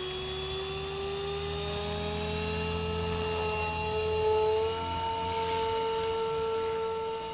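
Electric Protos 500 RC helicopter spooling up. Its motor and rotor give a whine that rises steadily in pitch over a low rotor buzz, peaking about four seconds in as the helicopter lifts off into a hover.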